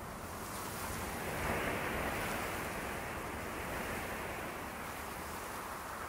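Wind blowing in a snowy forest: a steady whooshing noise that swells about a second and a half in and then eases off.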